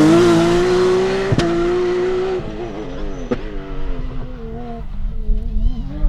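Porsche 911 GT3 Cup's flat-six engine at high revs, the note climbing for about two seconds, then falling in several steps and quieter as the car lifts off and slows, before it picks up again near the end. Two sharp clicks cut in along the way.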